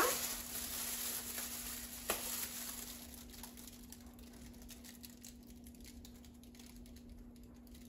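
Seasoning shaker jars being shaken over raw pork chops, with the rustle of plastic-gloved hands: a soft patter and rustle, a sharp tap at the start and another about two seconds in, then quieter. A faint steady hum runs underneath.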